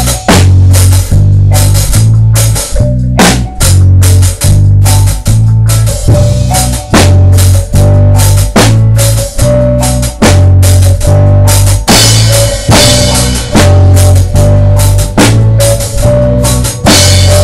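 Drum kit playing a steady reggae beat along with a song, kick and snare hits over a heavy, repeating bass line.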